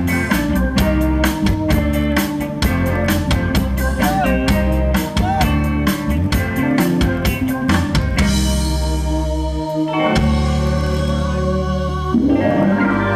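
Live rock band playing an instrumental passage on drum kit and electric guitar. About eight seconds in, the drum beat stops and held chords ring on with a cymbal wash, and there are sustained keyboard chords near the end.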